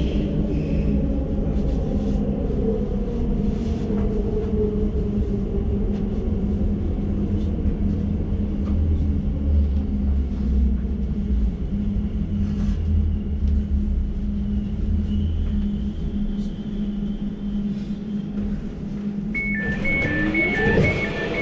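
Elizabeth line Class 345 train braking to a stop, heard from inside the carriage: a low rumble and steady hum, with the traction motor whine falling in pitch as it slows. Near the end, rapid two-tone beeping starts as the doors open.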